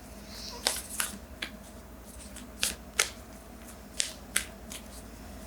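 A deck of oracle cards being handled and shuffled: about eight crisp card snaps and taps at uneven intervals.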